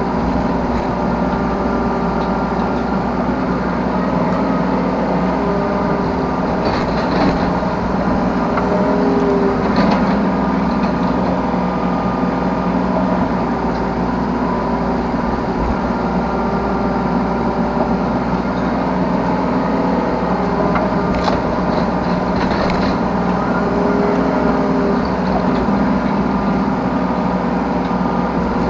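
Yanmar B3 Sigma 3-ton mini excavator's diesel engine running steadily under working load, its note shifting slightly as the machine digs and loads, with a few brief knocks from the bucket and arm.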